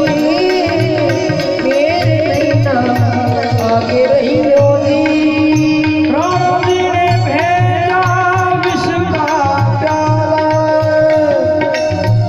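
Music: a melody that glides up and down in pitch over a steady, repeating drum beat.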